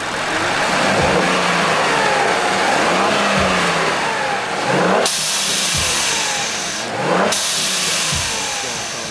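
Ford Edge twin-turbo 2.7-litre EcoBoost V6 revved in throttle blips. Twice, as the revs peak and the throttle snaps shut, the aftermarket Boomba blow-off valve vents boost with a loud whooshing hiss: once about halfway through and again two seconds later.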